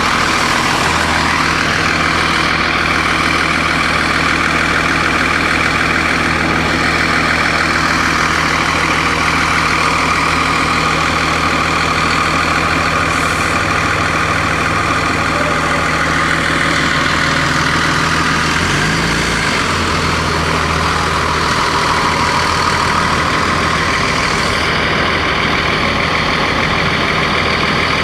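Cummins ISC straight-six diesel of a 2002 Blue Bird CS transit bus running steadily, with a brief change in engine pitch about two-thirds of the way through.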